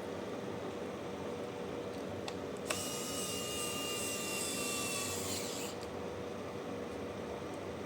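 A small electric motor starts with a click and whirs at a high pitch for about three seconds, its tone sagging slightly before it stops, over a steady low hum.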